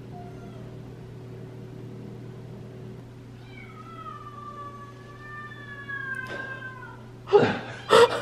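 Kitten crying while shut in a room: faint mews, then one long drawn-out meow that falls slowly in pitch. Louder, short sounds follow near the end.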